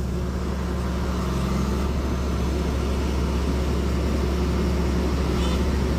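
Bulldozer's diesel engine running steadily with a deep, low drone; a higher hum within it stops about two seconds in.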